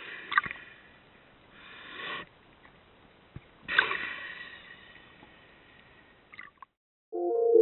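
Breathy whooshing noises: one swells up about two seconds in, and a sharper one starts near four seconds and slowly fades. Music starts near the end.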